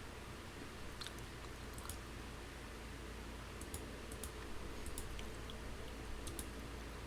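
Faint, irregular small clicks, about one or two a second, over a steady low hum.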